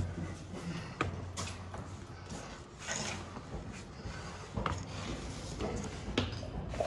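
Footsteps knocking on the wooden boards of a steep stairway, landing irregularly about a second or so apart, over a low steady hum.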